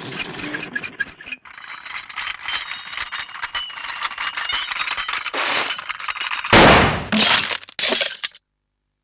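Cartoon sound effects: a busy clatter of clinks and knocks, with a few louder crashes in the last seconds, the biggest about six and a half seconds in. Everything cuts off abruptly shortly before the end.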